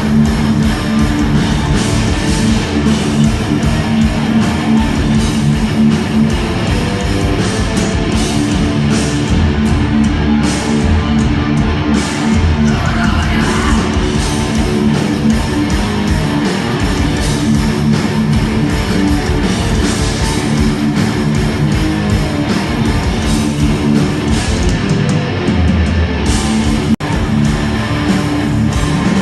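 Heavy metal music with loud electric guitars, dropping out for an instant near the end.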